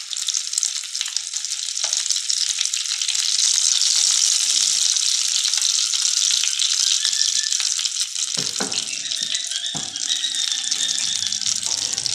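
Egg-coated potato patties (aloo tikki) shallow-frying in hot oil in a frying pan: a steady sizzle with fine crackling, and a couple of sharp knocks about eight and a half and ten seconds in.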